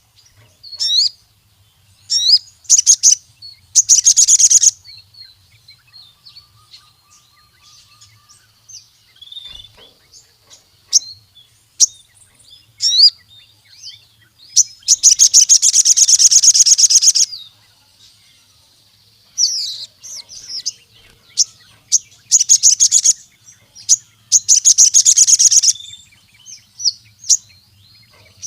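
Sogon (ruby-cheeked sunbird) singing: loud, sharp high chirps broken up by rapid buzzy trills, the longest lasting about two seconds midway.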